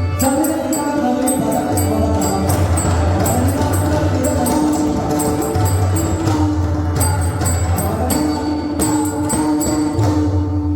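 Marathi abhang devotional music: pakhawaj and tabla drumming under sustained melodic lines, with bright jingling metal strokes keeping a steady beat.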